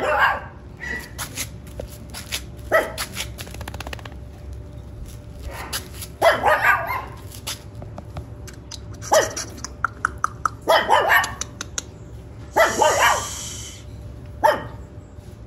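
Miniature Schnauzer puppy barking: a bark or a short run of barks every couple of seconds, about seven bouts in all.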